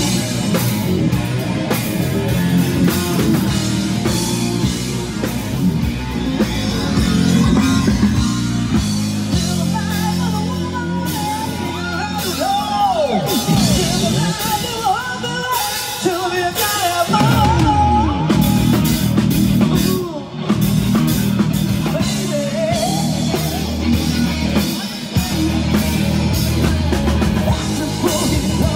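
Live rock band playing: distorted electric guitar, drum kit and a man singing into a handheld microphone.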